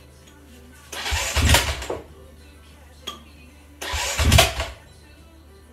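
Honda CRF250X single-cylinder four-stroke engine cranked over twice, each attempt about a second long, without catching. These are first-start attempts after an engine rebuild. A short click comes between the two attempts.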